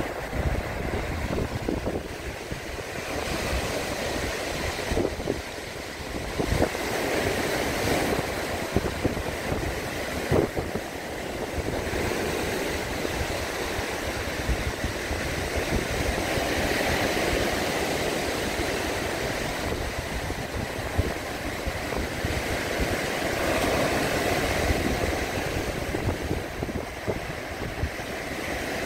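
Sea surf breaking and washing up a rocky, pebbly shore in slow swells, with wind buffeting the microphone in irregular low gusts.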